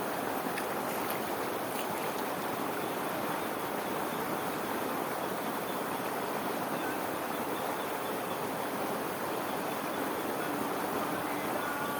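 Swift water of an irrigation channel rushing steadily over a small waterfall, an even, unbroken rushing sound.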